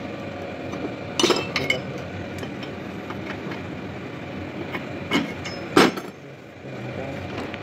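Metal parts of a buggy's steering linkage clinking and knocking as they are handled by hand: a quick cluster of clinks about a second in, then two sharper knocks a little after five seconds, over a steady background hum.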